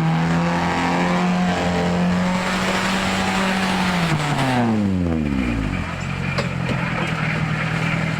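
Car engine held at steady high revs with a hiss over it for about four seconds, then the revs fall away over a second or so and the hiss stops. The engine settles into a lower, steady run.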